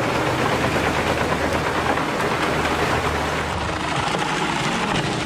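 Large wood chipper running, its engine a steady low drone under a dense, continuous crackle of branches being fed in and chipped. About three and a half seconds in this gives way to another heavy machine's engine over crackling brush.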